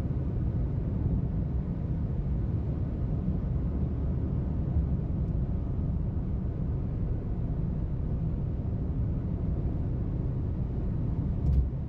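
Steady low rumble of a car travelling at highway speed, road and tyre noise heard from inside, with one short knock near the end.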